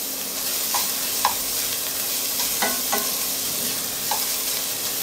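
Diced bacon sizzling in a ceramic-lined pot as its fat renders out, stirred with a spatula that scrapes and knocks against the pot a few times.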